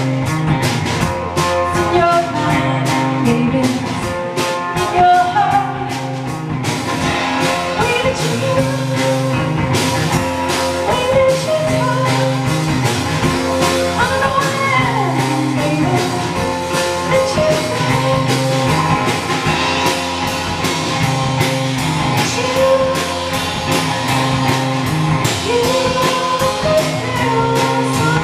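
A live blues-rock band plays: distorted electric guitar over a drum kit beating a steady rhythm, with singing.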